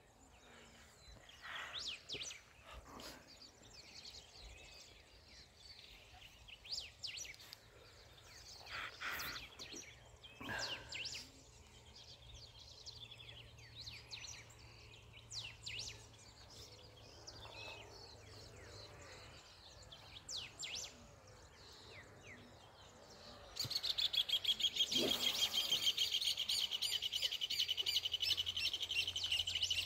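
Wild birds chirping and calling, scattered short high notes. About three quarters of the way in, a much louder, fast-pulsing high buzz starts up and keeps going.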